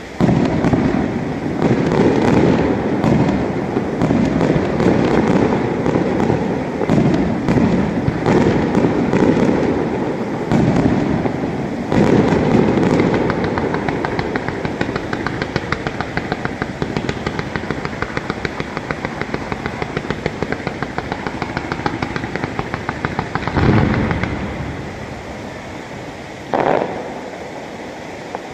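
Fireworks display: a dense string of aerial shell bursts and bangs, then a fast, even run of pops as a fan of comets is fired from the ground, and two more bangs near the end.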